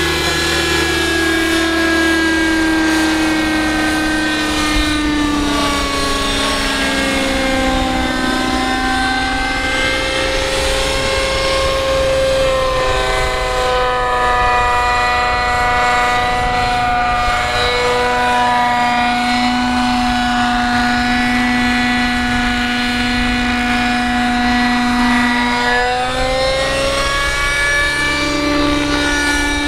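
Radio-controlled model helicopter in a Hughes 500 scale body flying, its motor and rotors giving a steady whine. The pitch sinks a few seconds in, climbs around twelve seconds, holds, and rises again near the end as it manoeuvres.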